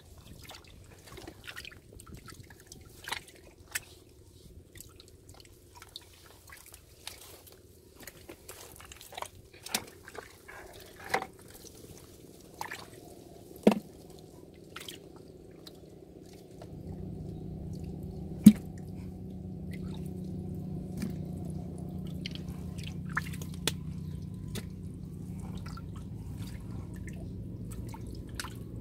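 Muddy water dripping and splashing lightly in a small pit full of eels as a hand stirs in among them, with scattered small ticks and two sharper snaps. About halfway through, a steady low background noise sets in.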